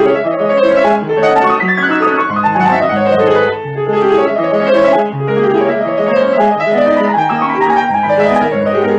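Upright piano played at a brisk pace: a running melody of quick notes over lower bass notes, cutting off abruptly at the end.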